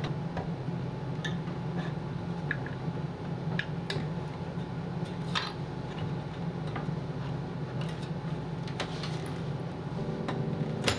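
Scattered light clicks and taps of a graphics card and PC case parts being handled during installation, over a steady low hum. There is a sharper click near the end.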